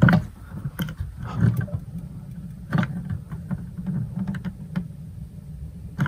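Gas ignition of a Dometic RM 5380 absorption fridge being tried: a handful of short, sharp clicks at uneven intervals as the ignition button is pressed and the gas knob worked, without the burner catching. A low steady rumble runs underneath.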